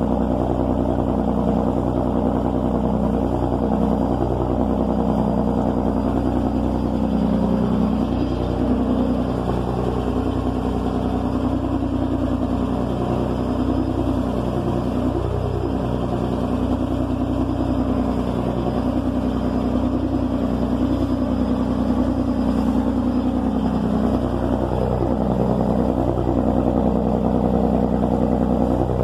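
Riverboat engine running steadily as a low drone, with river water rushing and splashing against the wooden hull in rough waves.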